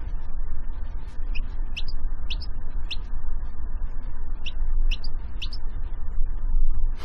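A bird chirping: short high chirps every half second or so, several in quick pairs, between about one and six seconds in, over a steady low rumbling noise.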